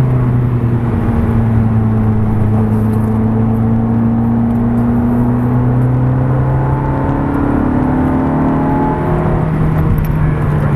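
Supercar engine heard from inside the cabin, running at steady moderate revs through a bend, its pitch rising gradually in the second half as the car accelerates, over road and wind noise.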